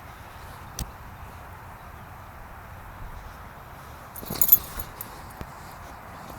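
A brief jingle of small metal clinks a little after four seconds in, preceded by a single sharp click about a second in, over a steady background hiss.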